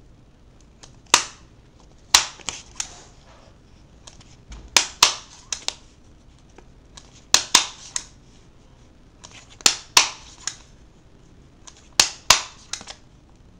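Stapler being pressed shut through folded paper: sharp snaps as each staple is driven, every couple of seconds and often in quick pairs, about six staples in all.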